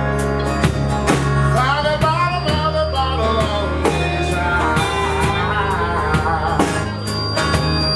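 Live band playing, with guitars, bass and drums, and a lead melody that slides and bends in pitch through the middle.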